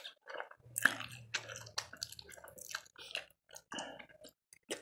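Close-up mouth sounds of eating spicy instant noodles: noodles slurped in, then wet chewing in many short, irregular smacks.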